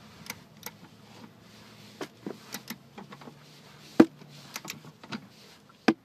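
Socket-wrench ratchet tightening the mounting bolt of a rear seat-belt buckle: scattered sharp metallic clicks, the loudest about four seconds in and another just before the end.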